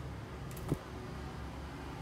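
Steady low background hum with no birdsong, and one faint short knock about two-thirds of a second in.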